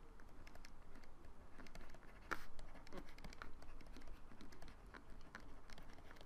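Stylus tapping and scratching on a tablet screen during handwriting: a run of faint, irregular ticks, with one louder click a little over two seconds in.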